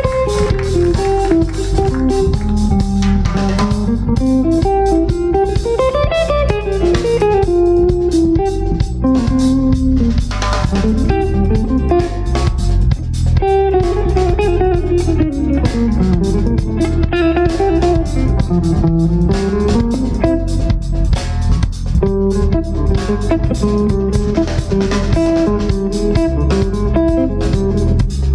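Live jazz band playing: an electric guitar's melodic lead line that slides and bends in pitch, over electric bass and a drum kit.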